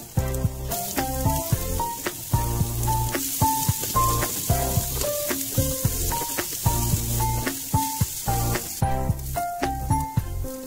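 Garlic, ginger and onion sizzling in hot oil in a frying pan as a wooden spatula stirs them, with background music carrying a melody and steady beat. The sizzle drops out near the end while the music carries on.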